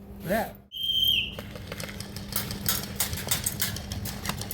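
A short high whistle-like tone about a second in, then a rapid, irregular run of sharp clicks and knocks from airsoft play.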